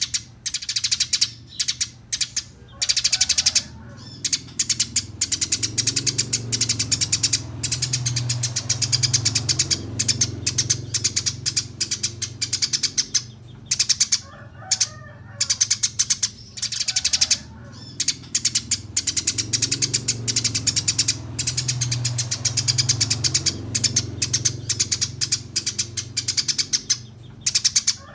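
Eurasian tree sparrows chattering in fast, dense strings of sharp high calls, broken by short pauses: the quarrelling chatter of fighting sparrows. A steady low hum runs underneath.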